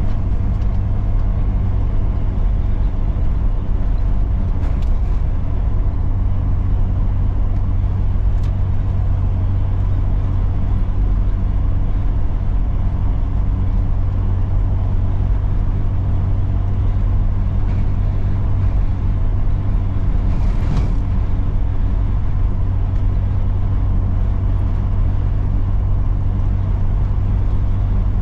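A vehicle heard from inside its cabin while driving: a steady low engine and road rumble. A few brief faint ticks come through on top, the clearest about twenty seconds in.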